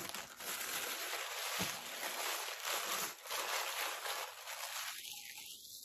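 Gift-wrapping paper rustling and crinkling as a wrapped package is torn open by hand, dying away near the end.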